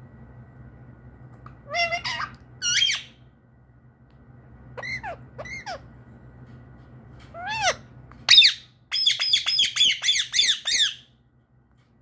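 Indian ringneck parakeet calling: short bent-pitch calls in twos, the loudest about eight seconds in, then a fast run of about ten sharp squawks that stops about a second before the end.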